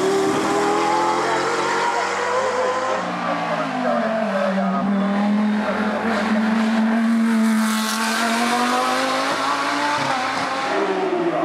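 Hillclimb race car's engine running hard on the course. Its note drops about three to four seconds in and holds steady, with a broad rush of noise as the car comes closest about two thirds of the way through, then the pitch climbs again near the end as it accelerates away.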